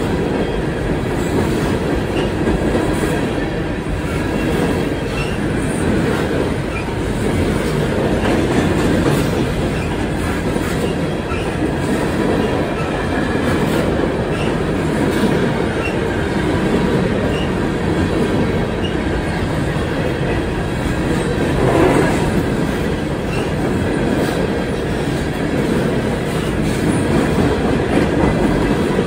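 CSX freight train of coal hopper cars rolling past close by: a steady rumble of steel wheels on the rails with rhythmic clickety-clack and faint high wheel squeal, briefly louder about 22 seconds in.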